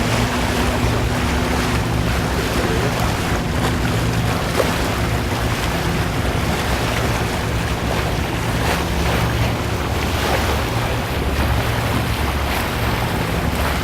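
Wind buffeting the microphone and water rushing along a yacht's hull, over a low, steady engine hum, all at an even level.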